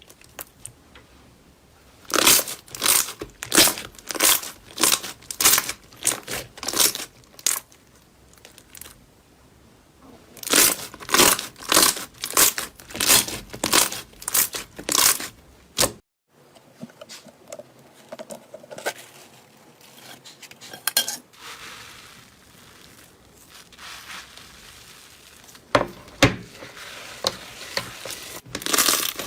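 Hands working slime: crisp crackling, crunching strokes in runs of about two to three a second, as the slime is squeezed and pressed. About halfway through the sound cuts off abruptly and gives way to a softer crinkling texture, with sharp strokes again near the end.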